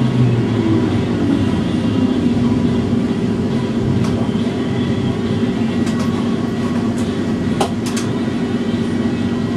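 Steady hum of a tram's motors and electrical equipment heard from the driver's cab, a little louder in the first second as it creeps forward, then holding while the tram stands. A few short sharp clicks come in the second half.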